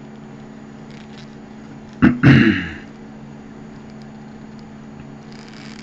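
Steady low electrical hum of room tone, broken about two seconds in by a sharp click and a brief loud sound lasting under a second; a soft hiss sets in near the end.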